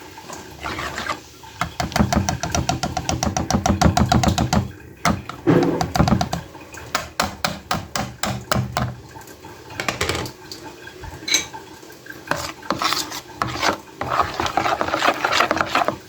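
Hand whisk beating pancake batter in a bowl: rapid, even strokes that stop and start in runs, with some scraping against the bowl.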